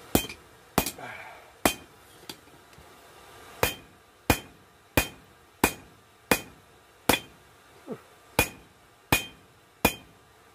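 Hand hammer striking hot coil-spring steel on an anvil: a steady run of about fifteen blows, roughly one every 0.7 seconds with a short break about two seconds in, each blow ringing briefly.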